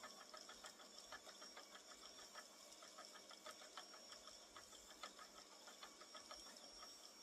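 Spinning wheel running as yarn is spun, giving a faint, fast, irregular clicking of several ticks a second.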